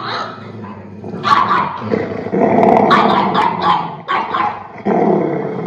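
A dog growling, with runs of short, sharp barks through it.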